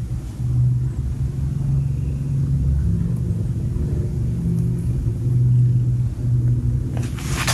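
Cat purring: a steady low rumble close by, with a few scratchy rustles near the end.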